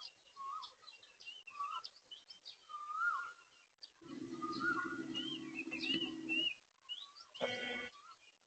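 Several birds calling outdoors: a short whistled phrase repeated every second or so, with higher chirps over it. A steady low drone comes in about four seconds in and stops after a couple of seconds, and a brief loud call sounds near the end.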